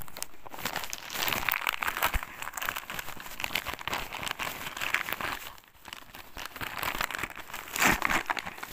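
Christmas wrapping paper crinkling and tearing right against the phone's microphone as a small present is unwrapped, loudest just before the end.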